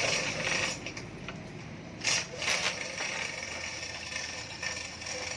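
Two short knocks about half a second apart, over steady background noise.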